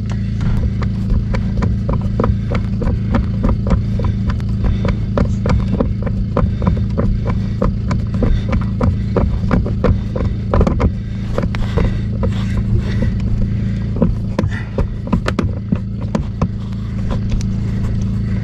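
Dense run of small irregular clicks and taps from hand work on the sink's mounting screws, over a steady low hum.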